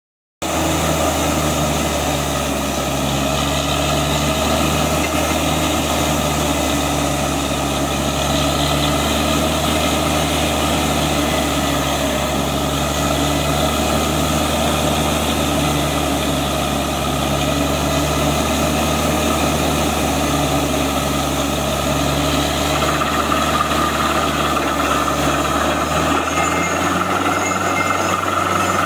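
Truck-mounted borewell drilling rig running steadily under load as it drills, a constant heavy engine drone. The tone shifts slightly a few seconds before the end.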